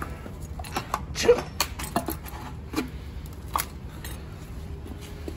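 Scattered light knocks and clinks, a few with a short ring, the strongest about a second and a quarter in, over a low steady hum.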